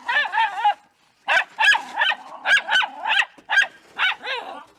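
Miniature schnauzers barking sharply and rapidly at a snow shovel being worked, about a dozen high barks with a short pause about a second in.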